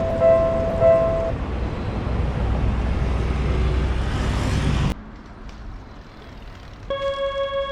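Japanese level-crossing alarm ringing its two-note electronic bell, nearly two strikes a second, stopping just over a second in, under the rumble of a passing train whose hiss grows brighter until it cuts off suddenly about five seconds in. Near the end a synthesizer tune starts.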